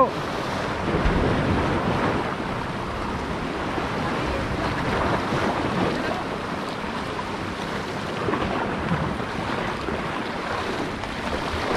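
Sea surf washing in and wind buffeting the microphone: a steady rushing noise that swells slightly now and then.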